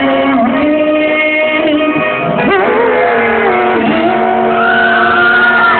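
Amplified singing into microphones over guitar-led backing music, played loud through stage PA speakers, with the voice sliding between notes.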